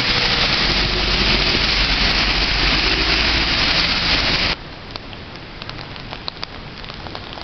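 Rain falling in a steady, loud hiss. About four and a half seconds in, it drops abruptly to a quieter patter with scattered drips.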